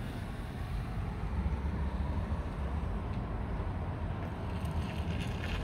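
Steady low rumble of passing traffic heard from inside a car, swelling slightly about two seconds in, with a brief higher hiss near the end.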